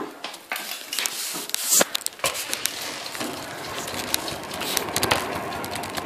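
Handling noise of a hand-held phone or camera microphone: rubbing and rustling, with many irregular sharp clicks and crackles.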